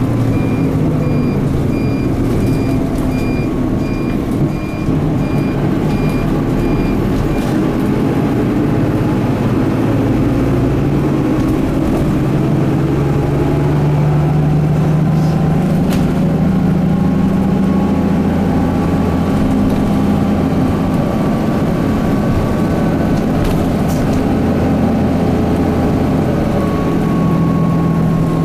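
Interior running sound of a Mitsubishi Fuso Aero Midi MK (KK-MK23HH) bus, its 6M61 six-cylinder diesel working through the five-speed manual gearbox, the engine note rising and falling with the gear changes. A regular electronic beeping sounds for about the first seven seconds.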